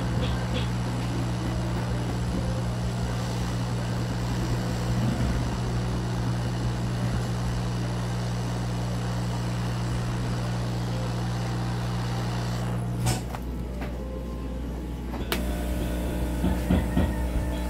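Hot air soldering station blowing through its nozzle, a steady rush of air with a low hum, reflowing the solder under a small ceramic capacitor on a laptop motherboard. It stops with a click about thirteen seconds in. After a quieter stretch, another click near the end brings in a different steady hum.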